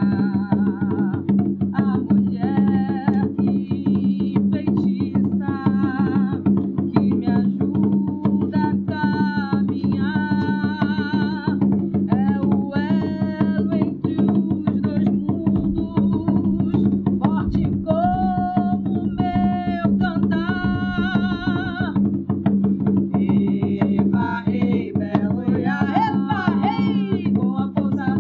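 A song with singing over drums and percussion keeping a steady beat.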